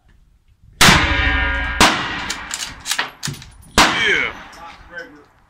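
Rifle shots on the firing line: three loud reports about a second in, near two seconds and near four seconds, each followed by a long metallic ringing tail.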